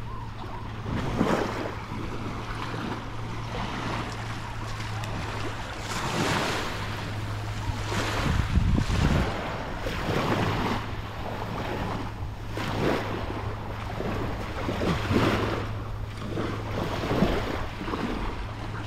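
Small waves washing onto a sandy beach in irregular swells, with wind on the microphone and a steady low hum underneath.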